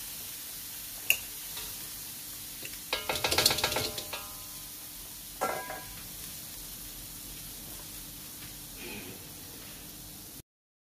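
Minced pork sizzling in a wok on a gas burner, with a spatula clanking and scraping against the wok in a quick run of ringing strokes about three seconds in and one more clank a couple of seconds later. The sizzling cuts off suddenly near the end.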